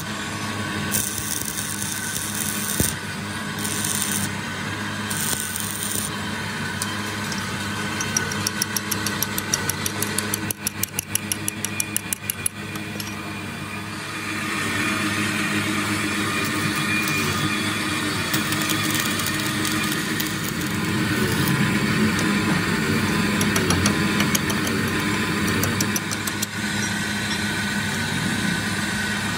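A steady engine drone throughout, with a quick run of ticks about a third of the way in, getting louder about halfway through.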